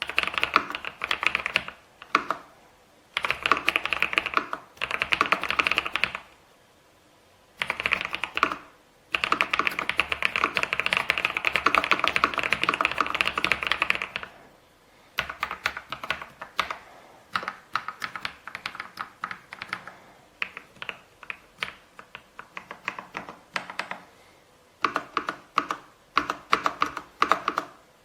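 Kisnt gasket-mounted mechanical keyboard with linear switches being typed on: fast runs of keystrokes in several bursts, one of them long and unbroken in the middle, then slower, separate key presses before a last quick burst near the end.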